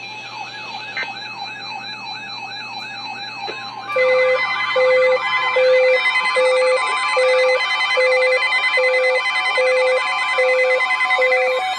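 Layered electronic warning sounds: a siren tone sweeping rapidly up and down, two to three times a second. About four seconds in, a loud repeating beep and several steady alarm tones join it and play together.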